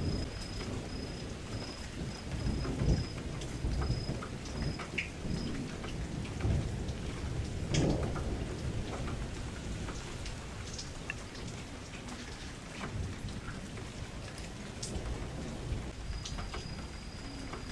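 Steady rain falling against a window glass, with scattered sharp drop taps over a low, rumbling wash that swells now and then, about three seconds and eight seconds in.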